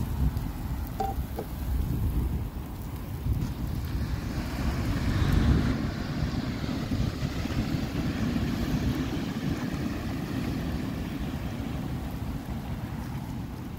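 Pacific surf breaking on a sandy beach, one wave swelling louder about five seconds in, with wind rumbling on the microphone.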